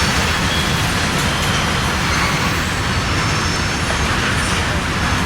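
Steady rumble and rail noise of a passing Norfolk Southern freight train.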